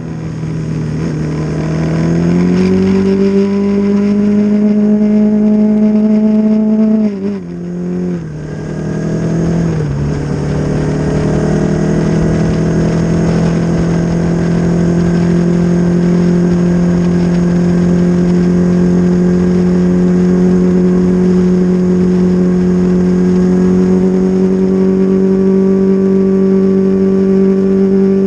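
Honda CB500 parallel-twin racing motorcycle engine at high revs, heard onboard with wind rush: the note dips and rises, drops sharply in steps with brief loudness dips as gears change about seven to ten seconds in, then holds a steady high note that slowly climbs under full throttle.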